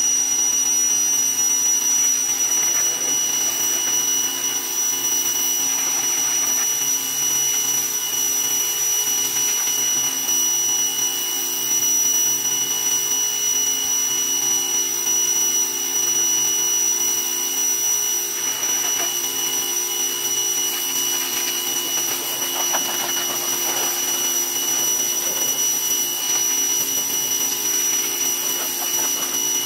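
Greenworks 2000 PSI electric pressure washer running steadily, its motor and pump giving a constant whine over the hiss of the high-pressure water spray.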